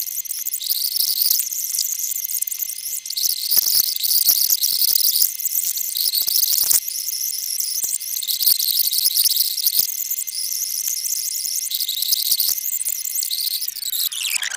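Loud hiss and crackle from a badly tracking videotape playback, with a steady high tone and scattered clicks. Near the end the tone slides steeply down in pitch.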